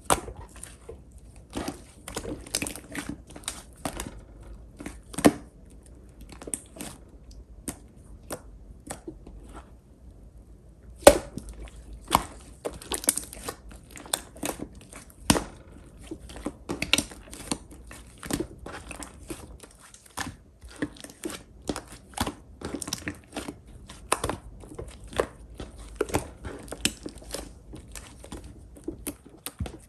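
Clear pink slime being squeezed and poked by hand, making irregular sharp sticky clicks and pops, several a second, with a short lull about ten seconds in.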